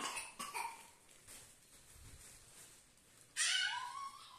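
A toddler's wordless whining: a couple of short whimpers at the start, then a louder, longer whine rising in pitch about three and a half seconds in.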